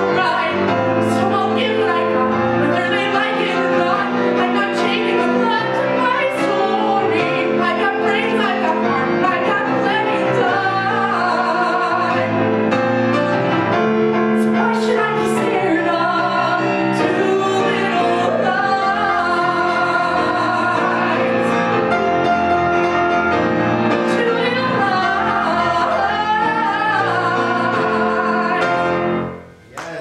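A solo female voice singing a song with piano accompaniment, with vibrato on the long held notes. The song ends with a sudden drop in the last second.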